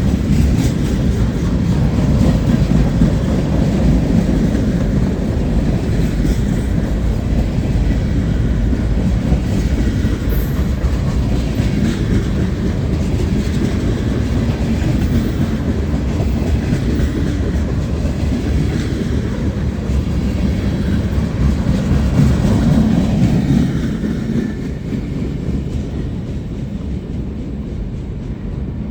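Freight train cars rolling past: a steady rumble of steel wheels on rail with clickety-clack over the rail joints, easing off in level about 24 seconds in.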